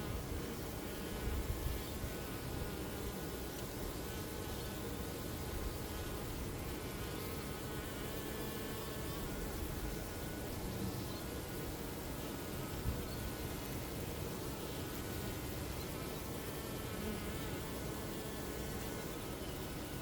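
A mass of honeybees buzzing in a steady, unbroken drone of many overlapping wingbeats, with a couple of brief low bumps.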